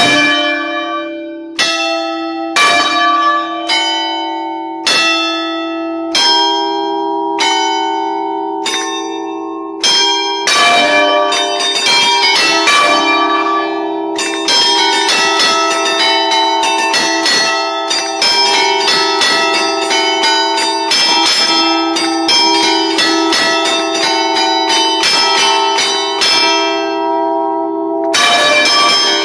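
Five-bell Barigozzi 1952 bronze church bell ring in D, struck by hand from the clavier keyboard in allegrezze. It starts with single strikes about a second apart, then from about ten seconds in plays a quicker, denser tune, the bells ringing on over each other.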